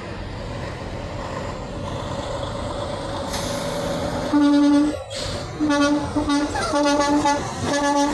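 Semi truck horn sounding: one short blast just past halfway, then four more quick blasts near the end, all on one pitch, over steady traffic and engine noise.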